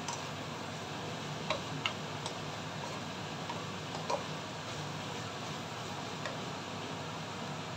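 Bacon and carrot strips sizzling in a pan as a slotted spatula stirs them, with a few sharp clicks of the spatula against the pan in the first half.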